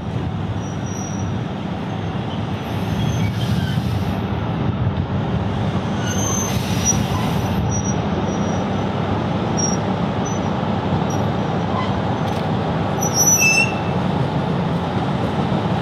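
Tulloch DRC diesel railcar rolling slowly in and stopping, its diesel engine running with a steady low rumble. Brief high-pitched wheel and brake squeals come a few times, loudest near the end as it comes to a stand, with two short hisses along the way.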